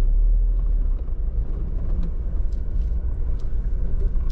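Jeep engine running low and steady, heard from inside the cab, with a few faint clicks over it.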